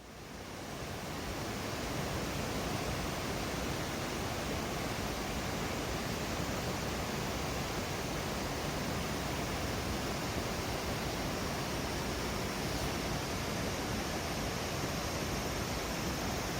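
Waterfall pouring steadily, a dense even rush of water that fades in over the first second or two and then holds constant.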